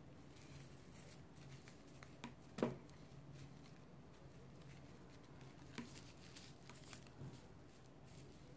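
Faint rustling and light clicking of raffia strands being pulled through crochet stitches and knotted by hand into a tassel, with one louder brief sound about two and a half seconds in.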